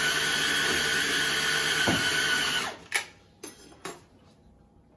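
Electric kitchen blender motor running steadily at high speed, blending the kimchi paste, then switching off about two and a half seconds in; a few knocks and clicks follow.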